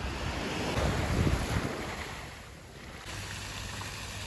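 Sea surf washing onto a beach, one wave swelling to its loudest about a second in and then fading, with wind buffeting the microphone.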